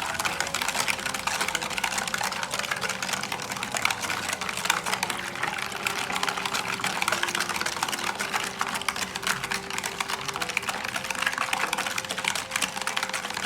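A wire whisk beating a thin mixture of milk, cornstarch, sugar and vanilla in a bowl: a fast, steady clicking and tapping of the wires against the bowl.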